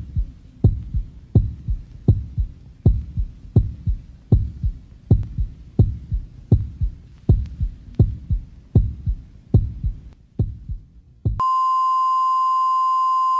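Heartbeat sound effect: low double thumps, about one and a half beats a second, the last few weaker. About eleven seconds in the beats stop and a steady high flatline beep takes over, like a heart monitor signalling that the heart has stopped.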